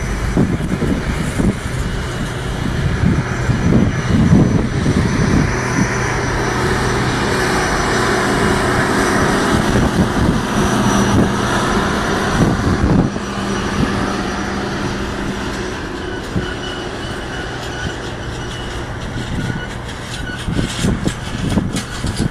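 Freight cars of a train rolling slowly past, their wheels rumbling on the rails, with thin high-pitched wheel squeals at times.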